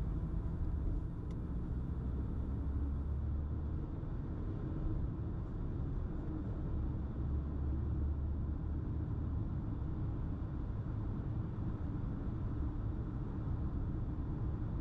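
Steady low rumble of a car being driven, heard from inside the cabin: tyre and engine noise with no distinct events.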